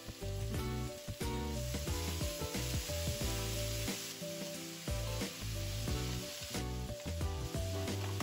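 Julienned potato strips sizzling in oil in a frying pan while wooden chopsticks stir and toss them.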